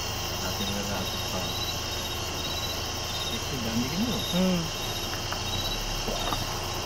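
Night insects, crickets, chirping in a steady pulsing trill, with brief faint low voices near the middle.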